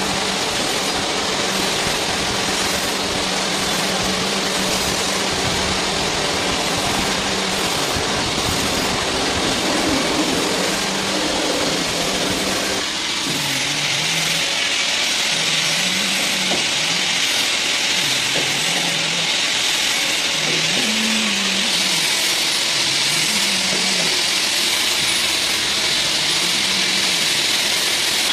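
CNC lathe running a face-grooving cut under flood coolant: a steady spray hiss over the machine's hum. About thirteen seconds in the low rumble drops away, leaving the hiss and a faint wavering hum.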